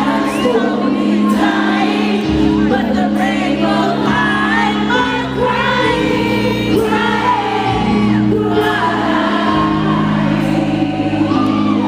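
Live freestyle dance-pop music with a singer, sung lines over sustained bass notes that change every second or two.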